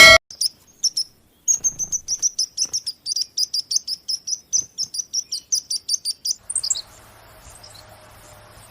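A bird chirping in a fast, even series of short high chirps, about five a second, which stops near the end and leaves a faint steady hum. Music cuts off sharply in the first instant.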